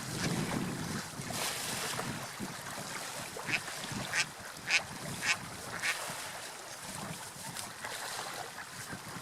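A duck quacks five times in quick succession, about a second apart, over a steady background of river water and wind noise. A low rumble sits under the first couple of seconds.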